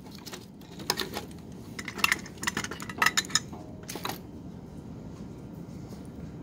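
Small clicks and clinks of handling a circuit board with its attached wires as it is turned over on the bench and the soldering iron is picked up: four short clusters of clicks about a second apart, then only a faint steady hiss.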